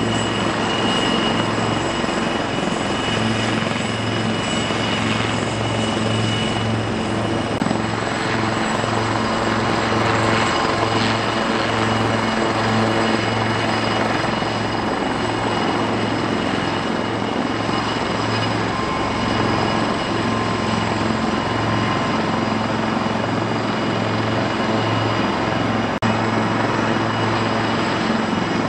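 AgustaWestland AW159 Wildcat helicopters running on the ground with rotors turning: a steady high turbine whine from their twin turboshaft engines over a pulsing low beat of the main rotors.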